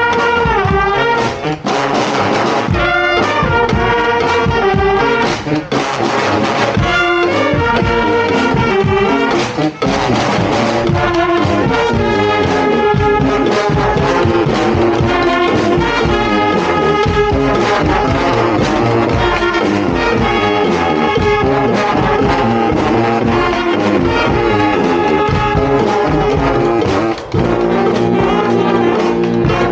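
Honk street band playing a tune live: several brass horns together over percussion keeping a steady beat, loud and continuous.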